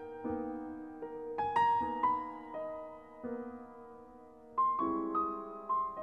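Background music: a slow solo piano melody, each note struck and left to ring and fade.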